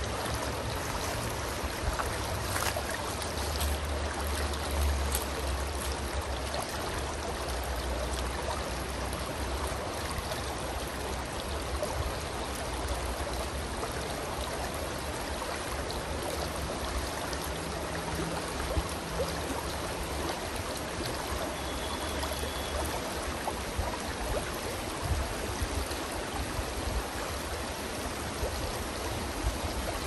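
Shallow stream running over a stony bed: a steady wash of flowing, rippling water.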